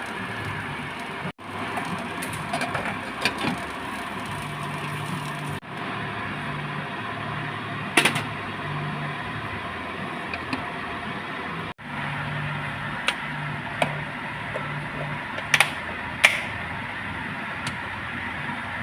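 Steady kitchen cooking noise with a few sharp clinks, like a utensil striking a pan or dish. The loudest clink comes about eight seconds in and two more come near the end. The noise breaks off abruptly three times where the shots are cut.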